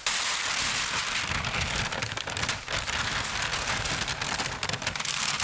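A sheet of plastic lighting gel crinkling and rustling as it is unrolled and handled, a steady dense crackle.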